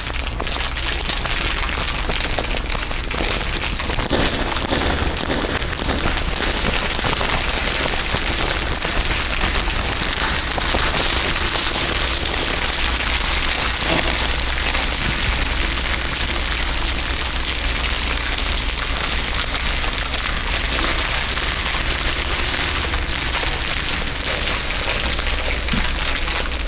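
Dense, continuous crinkling from several layered crinkle recordings, a steady mass of fine crackles over a steady low hum.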